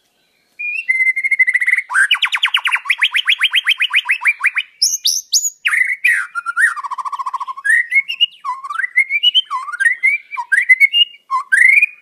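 White-rumped shama (murai batu) singing. About half a second in it starts with a held whistle, then a fast trill of about nine notes a second. This is followed by a string of varied whistled phrases that swoop up and down in pitch.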